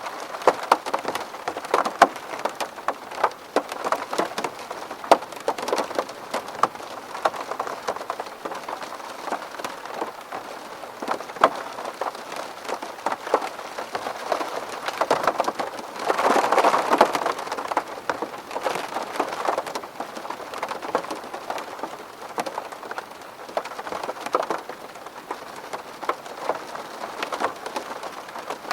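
Rain falling on a window pane: a steady wash of rain with many sharp, separate drop ticks on the glass. It swells louder for a couple of seconds a little past the middle.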